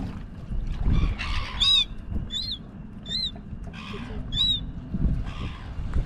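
Silver gulls calling over a fish: four short, harsh squawks, each rising and falling in pitch, spaced out between about one and a half and four and a half seconds in, with bursts of scuffling as two gulls flap and fight near the end.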